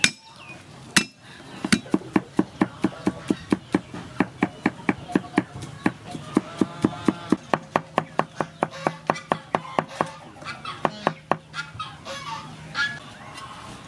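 Steel cleaver chopping lemongrass on a wooden chopping block: a steady run of sharp strikes, about four a second, stopping about eleven seconds in. Birds call faintly in the background.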